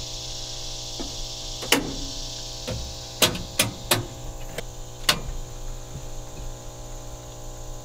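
About half a dozen sharp clicks as the breakers and disconnect switches of an off-grid solar power system are switched off to shut it down, over a steady electrical hum with many overtones.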